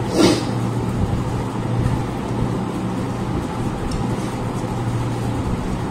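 Steady low hum over even background noise, with one short louder sound just after the start.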